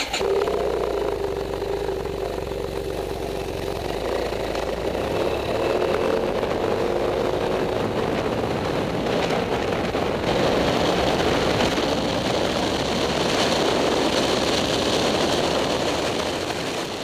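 BMW F800GS parallel-twin engine running and accelerating, its pitch slowly rising over the first several seconds. Wind noise on the helmet microphone thickens over the second half as speed builds.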